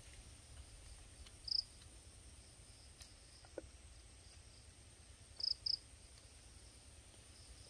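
Night insects: a steady high-pitched drone, with loud short chirps from one close by, once about one and a half seconds in and twice in quick succession later on.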